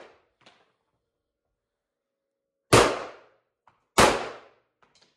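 Two pistol shots about a second and a quarter apart, each a sharp crack that dies away in a short echo off the walls of the range.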